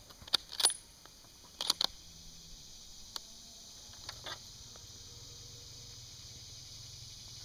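Sharp metallic clicks and knocks of a 30-06 rifle being handled and set down, in two quick pairs in the first two seconds and a few lighter ones later. A steady high drone of insects runs underneath.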